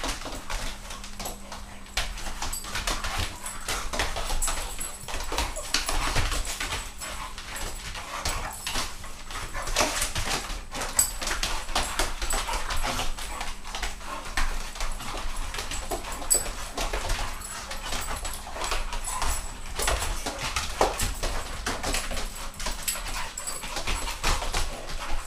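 Two dogs playing together, whining and yipping, with continual scuffling and many quick clicks and knocks.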